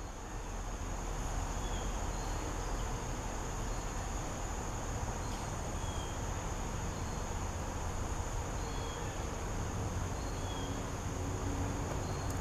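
Steady, unbroken high-pitched insect trilling, with a few faint short chirps over it and a low rumble underneath.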